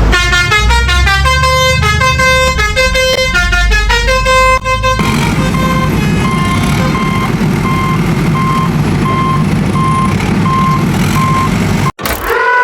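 Vehicle sound effects. A short beeping tune over a low engine rumble, then a steady rumble with a regular high beep about once a second, ending in a sustained horn blast.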